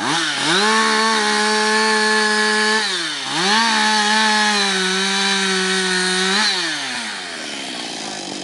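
Two-stroke chainsaw running at high revs while trimming a log down. The engine dips and picks straight back up about 3 s in, then winds down toward idle a little before the end.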